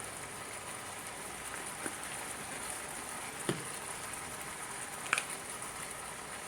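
Chicken browning in butter in a multi-cooker pot on sauté, sizzling steadily with a high hiss, with three short sharp clicks along the way.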